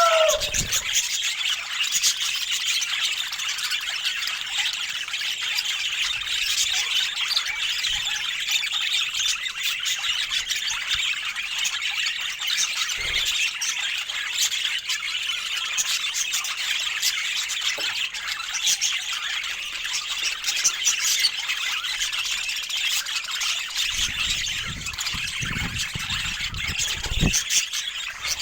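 Budgies chattering and warbling continuously, a dense mass of fast high chirps and squawks, with a few low bumps near the end.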